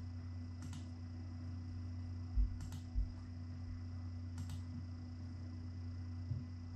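Three sparse computer mouse clicks as waypoints are shift-clicked one at a time, with two soft low thumps around the middle, over a steady low hum.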